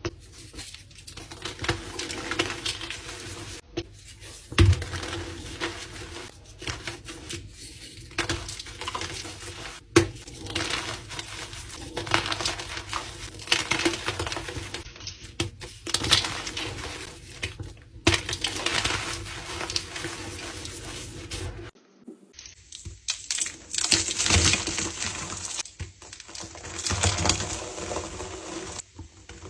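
Dyed gym chalk blocks being crushed and crumbled, a dry crunching and crackling that comes in repeated swells, with a couple of sharp knocks and several abrupt cuts between takes.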